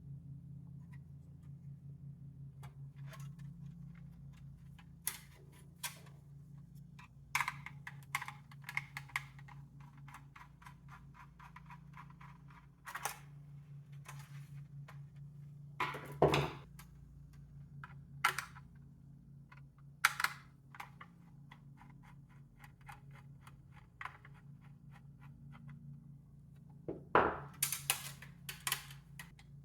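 Hands working on a small desktop computer's case and parts: scattered sharp clicks and knocks of plastic and metal, some in quick runs, with a louder knock about 16 seconds in and another near the end, over a steady low hum.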